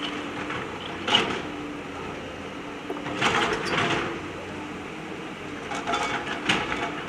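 JCB backhoe loader's diesel engine running steadily, with louder scraping and clattering bursts of the bucket working stones about a second in, for about a second around three seconds in, and again near six seconds in.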